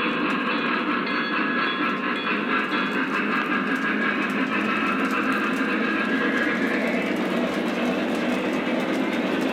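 Lionel O-gauge freight cars rolling past on track: a steady rumble of wheels with a fine clatter over the rail joints.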